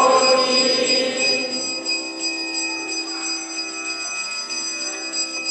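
Temple hand bell rung continuously during the aarti lamp offering, a steady bright metallic ringing that holds through without a break.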